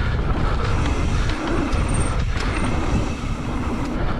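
Ride noise from a mountain bike descending a dirt trail: steady wind rumble on the microphone with tyres rolling over the ground.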